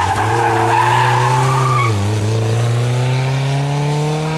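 Renault 8's engine running hard through a slalom bend, with tyres squealing over the first two seconds. The engine note dips briefly about two seconds in, then rises steadily as the car accelerates away.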